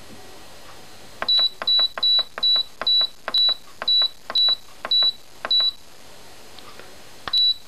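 Redmond multicooker control panel beeping as its time-setting button is pressed repeatedly to set the cooking time: about a dozen short high beeps, each with a button click, at roughly two a second, then a pause and one more beep near the end.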